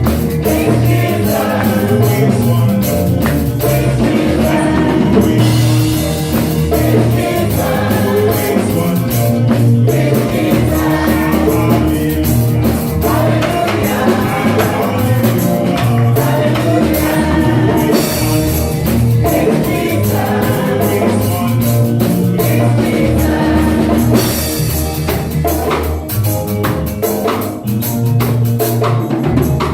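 Live gospel worship music: singing over a band with drum kit and tambourine, at a steady loud level.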